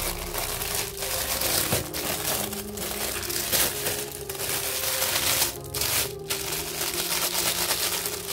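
Metallic foil wrapper being crumpled and folded by hand, a continuous crinkling that swells and eases as the hands squeeze and roll it.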